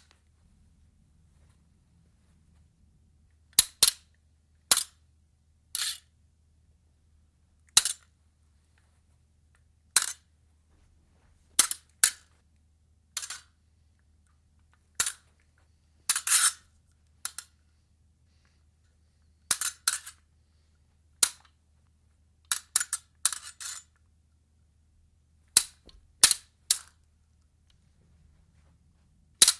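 Fencing blades clashing: about two dozen sharp metallic strikes at irregular intervals, some single, some in quick pairs, and a rapid flurry of several hits about two-thirds of the way through, with silence between the exchanges.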